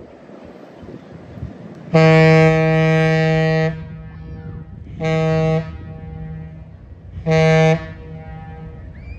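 Great Lakes freighter's air horn sounding one long blast and two short ones, the master's salute. The horn is deep, and a fainter echo hangs on after each blast.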